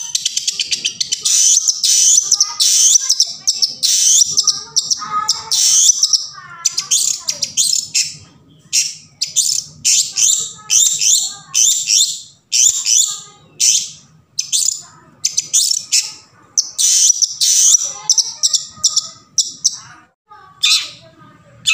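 Long-tailed shrike (cendet) singing: high, rapid chattering and chirping phrases, dense for the first several seconds, then broken into short bursts roughly every half second to second that grow sparser near the end.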